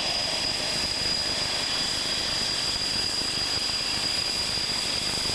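Panavia Tornado's twin RB199 turbofan engines running at taxi power: a steady high whine over a constant rushing noise.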